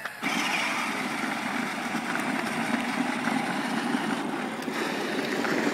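Stock 12-volt Power Wheels Kawasaki Super Shock toy dirt bike driving in slow speed. Its electric drive motor and gearbox run with the plastic wheels rolling over the ground, starting a moment in and holding steady.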